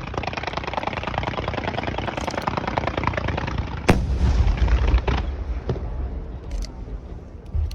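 Aerial fireworks: dense rapid crackling for about four seconds, then a sharp bang with a low rumbling tail, followed by scattered pops that thin out.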